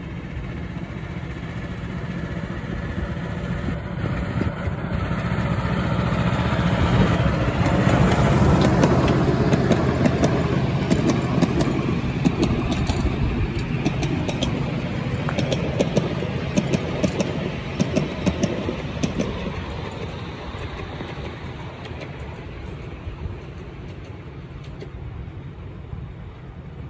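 Diesel engine of a miniature-railway locomotive built as an E2 tank-engine body shell, running as it hauls passenger coaches past: it grows louder as the train approaches, then the coach wheels click over the rail joints as they pass, and the whole fades as the train moves away.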